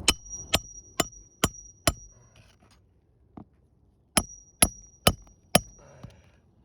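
Hammer blows driving roofing nails through a roof snake into a replacement shingle: two quick volleys of five strikes, about two a second, with a metallic ring hanging on through each volley and a pause of about two seconds between them.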